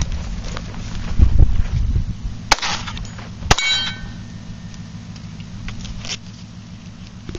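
Two sharp .22 pistol shots about a second apart from a Ruger SR22, the second followed by the ringing of a struck steel target.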